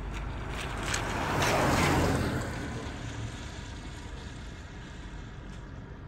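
A car passing by close, its road noise swelling to a peak about two seconds in and then fading, over a steady low rumble.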